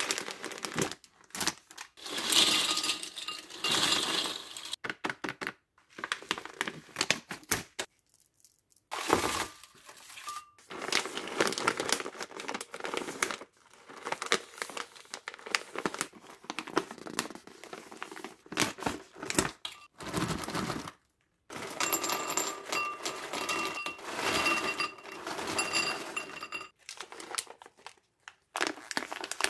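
Plastic snack bags crinkling and rustling as hands handle them and tear them open, in bursts with a couple of brief pauses.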